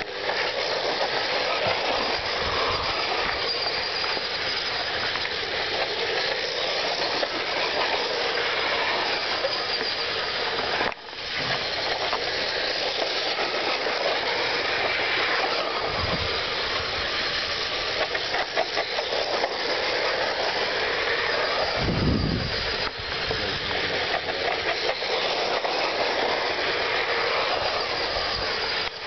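Small electric RC trucks (Losi Mini-T class) racing on dirt, giving a steady, busy mix of high motor and drivetrain noise. It dips out briefly about eleven seconds in, and two short low thuds come later.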